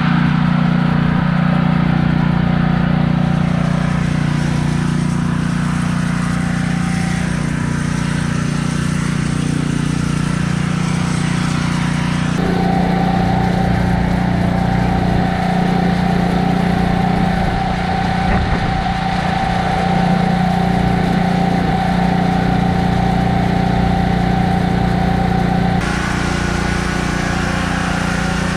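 Pressure washer's small engine running steadily under load, a loud constant hum. Its tone changes abruptly twice, about twelve seconds in and near the end.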